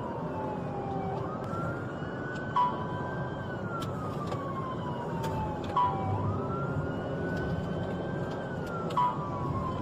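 Police siren wailing in slow cycles, each a quick rise in pitch followed by a long fall, over the road and engine noise of a patrol car in pursuit. A short, louder beep-like tone cuts in three times, about every three seconds.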